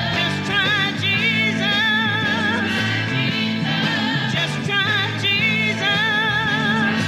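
Gospel song playing: a singer's wavering vibrato lines over steady band backing.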